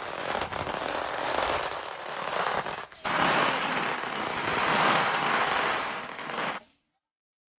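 A string of firecrackers going off in a dense, continuous crackle, with a brief break about three seconds in; it cuts off sharply near the end.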